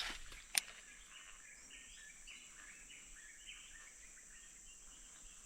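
Faint swamp ambience: scattered small chirps throughout and a steady high insect whine. A single sharp click comes about half a second in.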